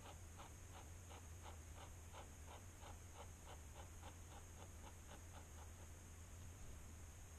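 Fountain pen nib scratching across sketchbook paper in short, evenly repeated strokes, about three a second, stopping shortly before the end; faint, over a low steady hum.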